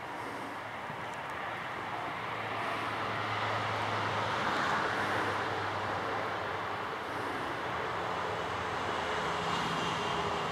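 Working diesel machinery (excavator, dump truck and wheel loader) running as a steady low hum, under a broad rushing vehicle noise that swells about four to five seconds in and then eases a little.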